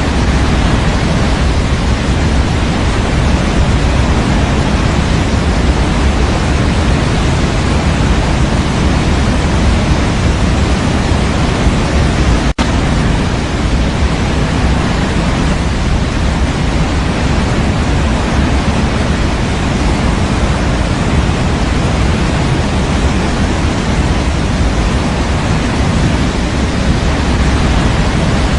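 Steady white noise for baby sleep, an even hiss with a heavy low-end rumble. It drops out for an instant a little before the middle, then carries on unchanged.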